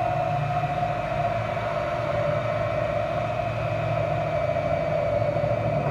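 Milwaukee cordless drill running a Hole Dozer hole saw, cutting into the plastic wall of a food-grade barrel: a steady motor whine with the saw grinding through the plastic.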